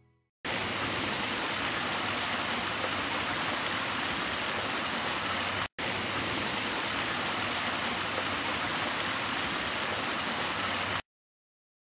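Steady rush of creek water running over rocks. It starts abruptly, breaks off for an instant about halfway through, and stops suddenly near the end.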